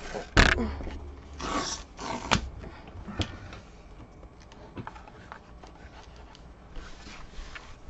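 A stiff white cardboard photo mailer being handled and opened on a desk. There is a sharp knock about half a second in, then scraping and rustling of the cardboard with a few clicks, and fainter rustling near the end.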